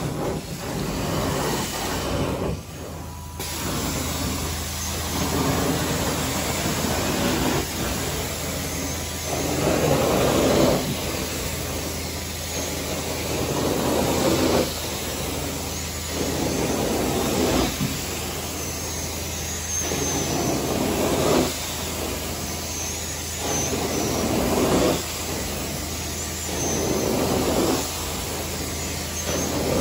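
Carpet-cleaning hot-water extraction machine running with a steady hum, its suction noise swelling and easing about every two seconds as the cleaning wand is worked across the carpet.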